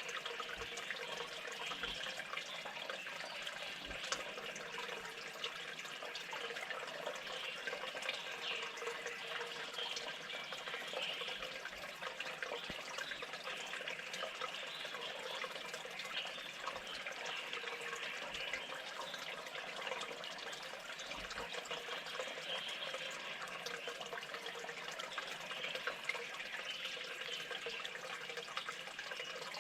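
A steady rush of running water, with faint scattered ticks.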